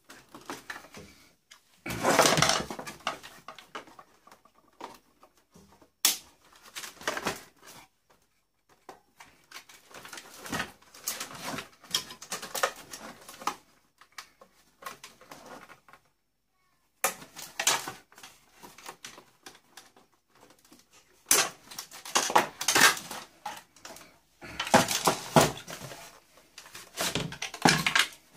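Irregular clicking and clattering of plastic and metal parts as a boombox is dismantled by hand, in bursts of a second or two with short pauses between them. The sound drops out completely for about a second roughly halfway through.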